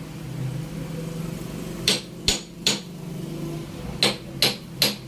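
A hammer striking hard: six sharp blows in two sets of three, about 0.4 s apart, over a low steady hum.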